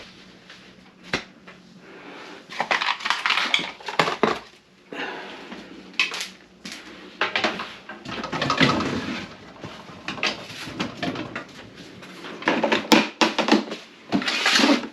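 Irregular clattering and rustling of hard objects being handled and moved about, with sharp clicks and knocks.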